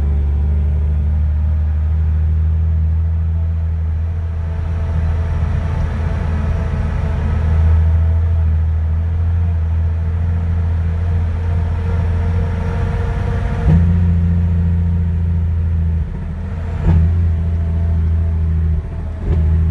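An old truck's engine running under way, heard inside the cab as a steady low drone. The tone shifts at about 14 s. Twice near the end the sound drops off briefly and comes back, with a short knock between the two drops.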